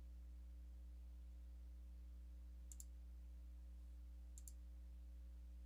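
Two quick double clicks of a computer mouse, about a second and a half apart, over a faint steady electrical hum.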